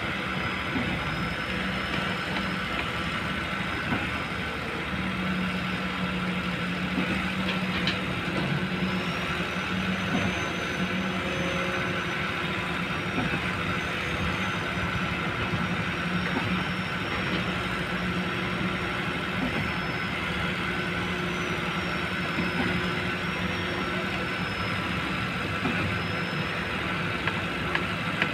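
Diesel engine of a Kobelco long-boom excavator running steadily, with a steady low drone, a few light knocks, and a thin high whine that wavers in pitch through the middle.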